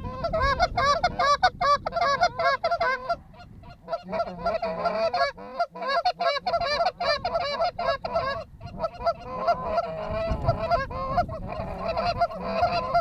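Rapid, overlapping goose honks and clucks, several a second, with short breaks about three seconds in and again past the eight-second mark.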